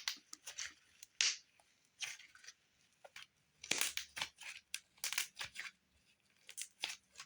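Two-layer icy and cloud slime being pressed and stretched by hand, giving irregular sharp pops and crackles as trapped air bubbles burst.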